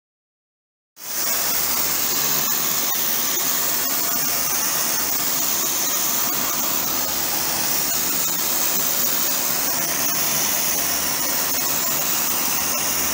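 Kärcher high-pressure washer running, its water jet hissing steadily against a concrete wall with a low hum underneath; it cuts in suddenly about a second in.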